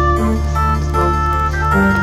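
Background music: sustained organ-like keyboard chords over a held bass, changing chord about every second and a half.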